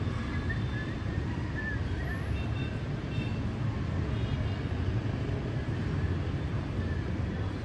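Steady hum of city traffic, mostly motorbikes and cars on a wet street, heard from high above. A few faint short high notes sound now and then.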